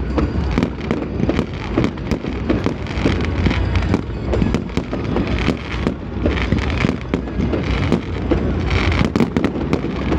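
Fireworks going off in quick succession: a dense, unbroken run of bangs and crackles.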